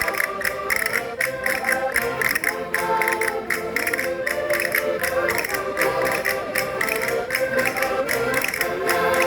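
Concertinas playing a lively folk dance tune, with many sustained reedy notes over a steady percussive beat.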